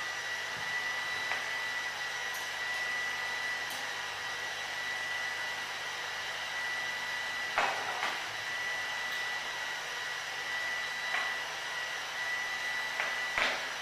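Leister Sonora S1 hot-air hand tool blowing steadily: a fan hiss with a thin, high, steady whine, used here to heat screws to loosen them. A couple of short knocks come about halfway and near the end.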